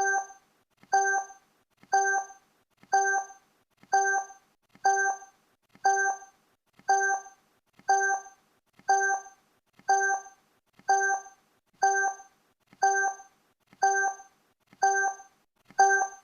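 Countdown timer sound effect: a short pitched blip repeating evenly once a second, marking each second of the count.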